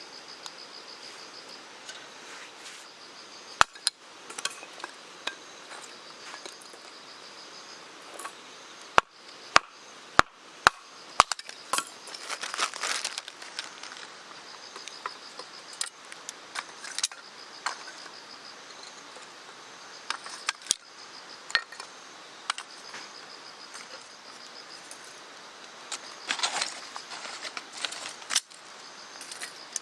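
Insects chirping in a faint, pulsing high trill over outdoor background noise. They are broken by sharp knocks: one about four seconds in, then a run of five about half a second apart in the middle.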